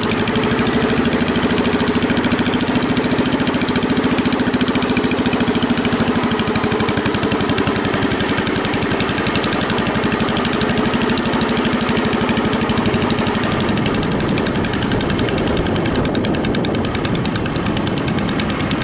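Garden tractor engine running under way through a short, straight side exhaust pipe: a loud, rapid, even pulsing exhaust note. Its pitch holds steady for most of it and loosens a little after about thirteen seconds.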